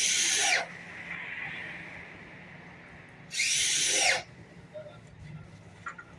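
Two short bursts of a handheld power tool, about three seconds apart. Each time the motor's whine rises and then falls.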